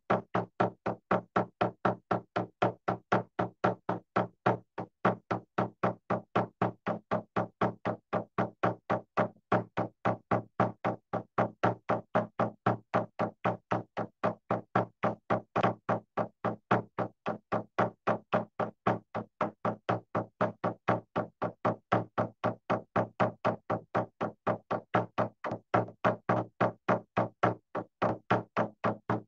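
Hand drum beaten in a slow, even pulse of about three strokes a second, each stroke with a short, low, resonant ring. It is a steady beat to breathe along to during paced breathing.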